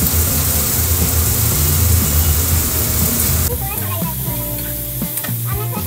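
Chopped vegetables sizzling in a non-stick kadhai while a spatula stirs and scrapes them, with clicks of the spatula against the pan. The hiss is strongest in the first half and eases off about three and a half seconds in.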